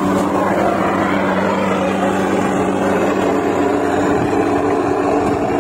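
A steady mechanical drone: a low, even hum with a rushing noise over it.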